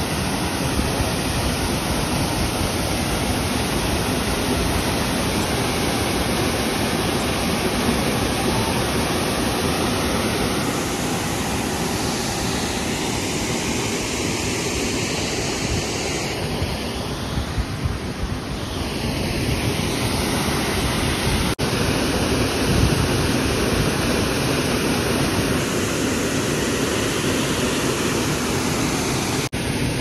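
Waterfall and the rocky stream below it rushing steadily, a constant even wash of falling and running water, broken by two very short dips in the sound, about two-thirds of the way through and near the end.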